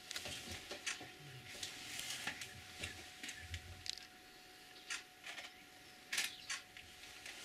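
Camera shutters clicking from a DSLR with a telephoto lens, irregular single clicks and short quick runs of two or three.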